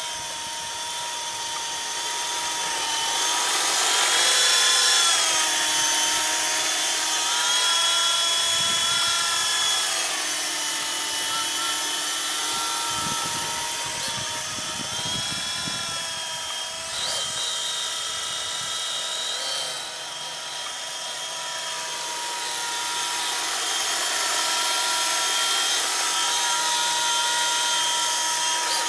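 Electric single-rotor RC helicopter in flight: a motor-and-gear whine with rotor noise, its pitch rising and falling every few seconds as the throttle changes.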